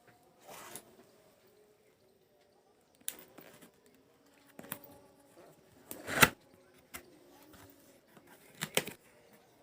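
Camera box packaging being handled and unpacked: scattered rustles and knocks with quiet gaps between, the sharpest knock about six seconds in.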